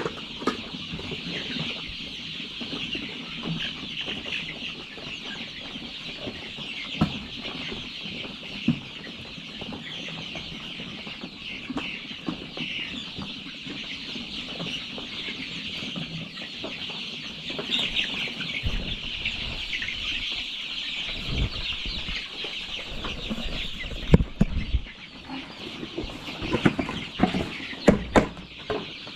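A large flock of young chickens peeping and clucking in a continuous dense chorus. From about two-thirds of the way in, dull thumps and knocks sound over it.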